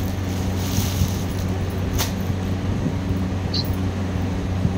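Clear plastic packaging crinkling and rustling as a folded cloth suit is drawn out of it and unfolded, with one sharp crackle about two seconds in. Under it runs a steady low electrical hum.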